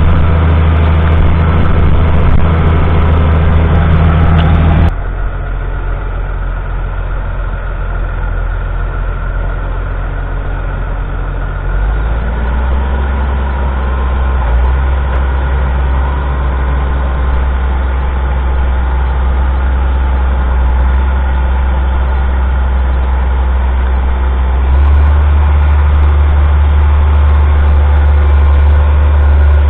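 Lamborghini R6.140 tractor's 6.1-litre six-cylinder diesel engine running steadily. Its sound drops sharply about five seconds in, shifts in pitch about twelve seconds in, and grows louder again near twenty-five seconds in.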